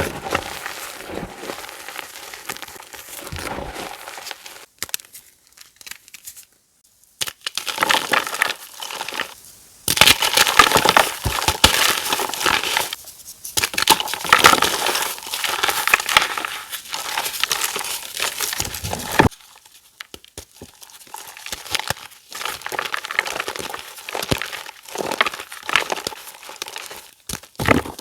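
Blocks of reformed gym chalk being crushed and crumbled by hand, a dense crunchy crackle with short pauses. It is loudest in the middle and drops off sharply about two-thirds of the way in.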